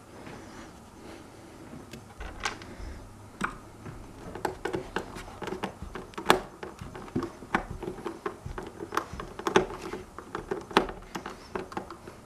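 Screwdriver driving self-tapping screws into a plastic hoverboard shell, with hands handling the shell. Irregular clicks and scrapes, sparse at first and busier from about two seconds in.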